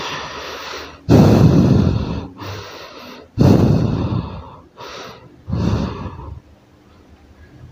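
A man breathing heavily: about six loud, forceful breaths, the second and fourth the loudest, then quiet near the end.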